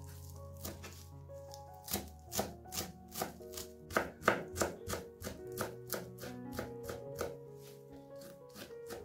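A knife chopping on a cutting board in a steady run of about three strokes a second, loudest around the middle, over soft background music.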